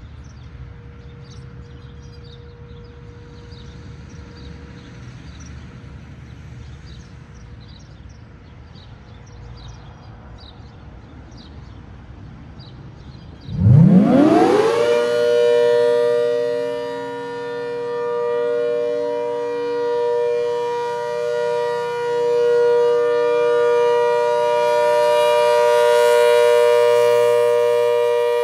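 ACA Hurricane MKII 130 rotating warning siren starting up on its steady Alert signal. About halfway through, a fast rising wind-up glide settles into a steady two-tone chord, the level swelling and fading as the horn rotates. Before it starts there is only faint background with high chirps.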